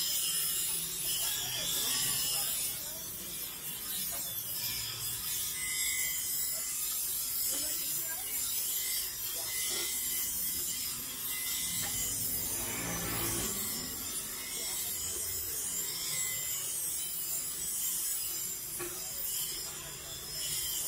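Bench grinder's abrasive wheel grinding a steel knife blade: a steady, high hissing grind of metal on stone.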